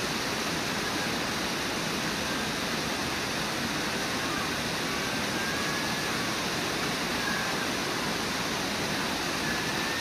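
A river waterfall rushing steadily: water pouring over the falls in a constant, even roar.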